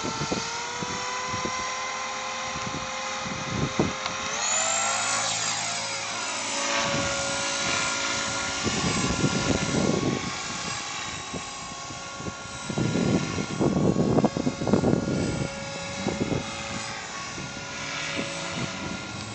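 A machine's motor or engine running with a steady multi-pitched whine that rises in pitch about four seconds in, then holds steady. Several bursts of low rumbling noise come in the second half and are the loudest sounds.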